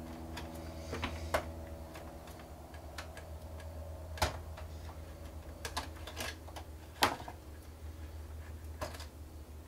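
Scattered small clicks and taps of fingers prying a wire connector loose from a projector's circuit board and plastic chassis, the sharpest click about seven seconds in. A low steady hum runs underneath.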